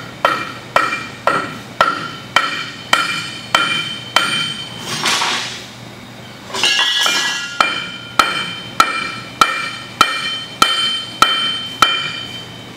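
Hammer blows on the steel wheel hub of a combine's final drive, a steady series about two strikes a second, each blow ringing metallically. The blows stop for a couple of seconds near the middle, where there is a rushing noise, then resume.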